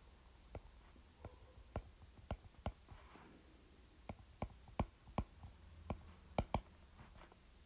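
A stylus tip tapping and clicking on a tablet's glass screen while handwriting. There are about a dozen faint, irregular clicks, with the loudest two close together about six and a half seconds in.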